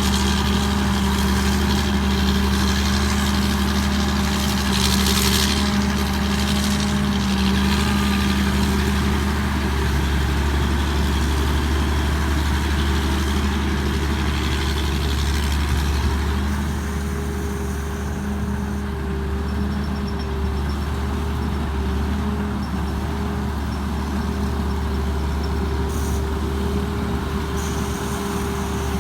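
Six-cylinder Hino J08C diesel engine of a Tamco Pro S9000 combine harvester running steadily, with a slight change in pitch and a small drop in level about halfway through.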